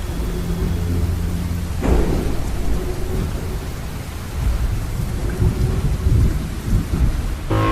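Thunderstorm: steady rain with rolling low thunder, and a sharper thunderclap about two seconds in. Music comes in right at the end.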